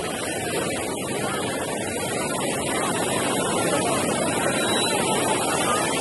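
Ocean surf washing onto the beach: a steady rushing hiss that swells slowly, with faint voices of beachgoers underneath.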